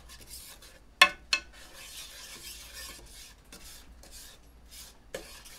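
Wooden spatula stirring and scraping olive oil and light brown sugar around a square nonstick pan in repeated strokes. About a second in come two sharp knocks against the pan, the loudest sounds.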